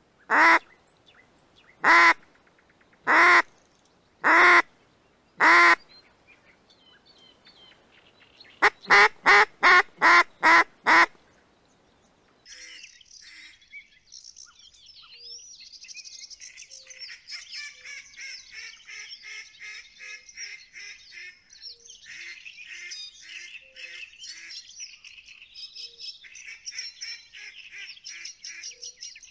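Loud duck quacking in the pattern of a mallard hen's call: five quacks about a second apart, then a quick run of seven. From about twelve seconds in, small birds sing in a busy chorus.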